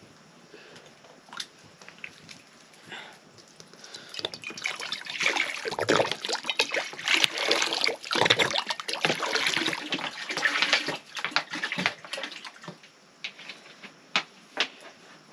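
Water sloshing and splashing, densest in the middle few seconds, with scattered small clicks and knocks.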